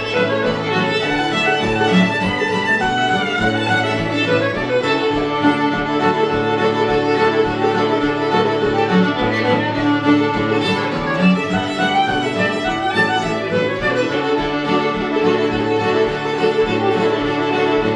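Old-time string band jam playing a fiddle tune: fiddle leading the melody over strummed guitar with a steady beat.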